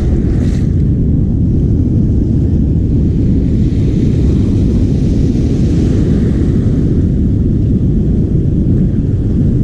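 Heavy wind buffeting the microphone: a loud, steady low rumble.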